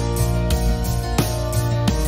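Background music with plucked guitar notes and a steady beat.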